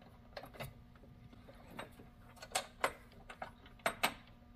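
Irregular light metallic clicks and taps as a small socket head cap screw is threaded by hand into a master cylinder brace, with several sharper clicks in the second half.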